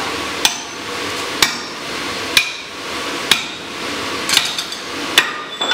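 Sledgehammer blows on a steel drift being driven through the hardy hole of a striking anvil: six strikes about a second apart, each with a brief metallic ring.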